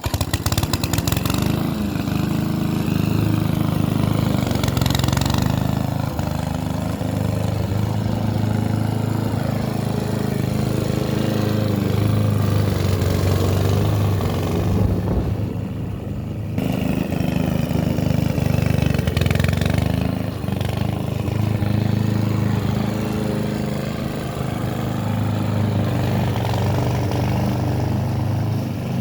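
Hyundai HY145V petrol lawn mower engine running steadily at working speed, starting abruptly at the outset.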